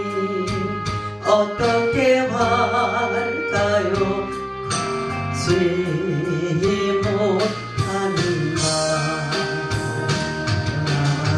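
A woman singing a Korean praise song into a microphone, her voice wavering in vibrato on held notes, over instrumental accompaniment.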